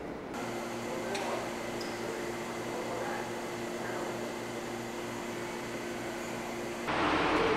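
Steady mechanical hum with two low steady tones and a faint pulsing underneath. Near the end it cuts off abruptly to a louder, even background noise.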